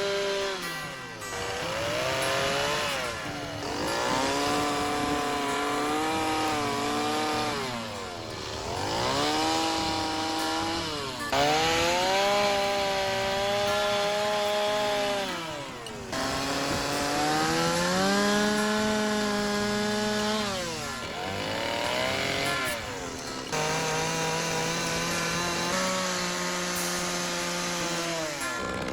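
Two-stroke carving chainsaw revving up, holding high revs while it cuts into the wood, then dropping back to idle, about six times over.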